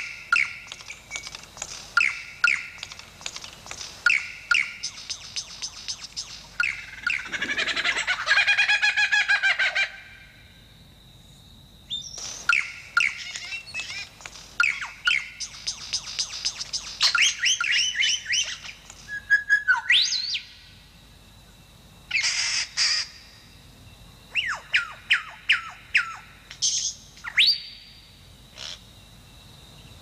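Lyrebird singing a string of calls mimicked from other forest birds. It runs in loud bursts of rapid ringing notes and downward-sweeping whistles, with short pauses and a warbling phrase about a quarter of the way in.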